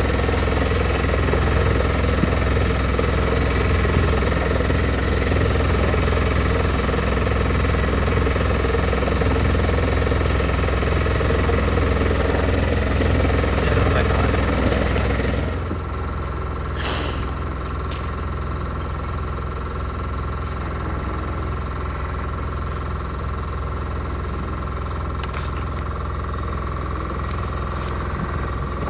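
Engine running steadily with a deep, rumbling drone; it drops in level about halfway through, with a brief higher noise just after.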